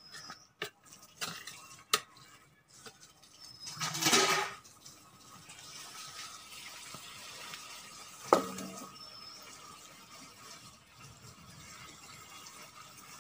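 Perforated metal ladle clicking, scraping and knocking against a large metal pot as biriyani rice is scooped out. There are scattered light clicks at first, a longer scrape about four seconds in, and a single sharp knock just past eight seconds.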